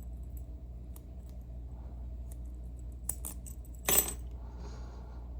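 A few light metallic clinks from small lock parts and picking tools being handled and set down, the loudest about four seconds in, over a steady low hum.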